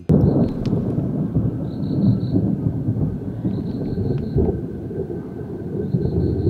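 Thunder rolling: a long, loud low rumble that starts suddenly and swells and eases over several seconds, with faint high-pitched chirps in short runs every second or two.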